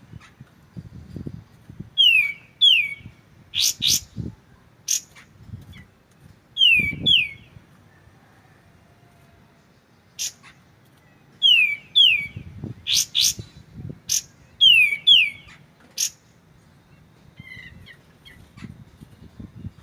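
Pied triller (kapas tembak) calling: pairs of sharp falling whistled notes, each pair followed by several short, sharp clipped notes. Four such phrases come with brief pauses between them.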